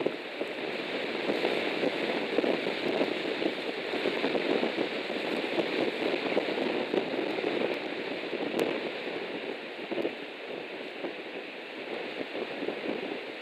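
Strong gusty wind of about 30 to 45 mph rushing past the nest camera, a steady roar that swells and eases with the gusts.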